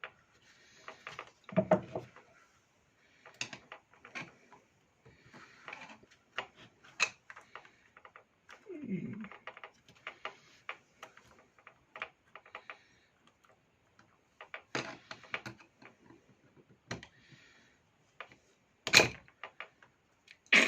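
Irregular clicks, taps and rattles of small plastic and metal parts of a Makita electric chainsaw being handled during disassembly, with a few soft thuds and one louder, sharp knock near the end.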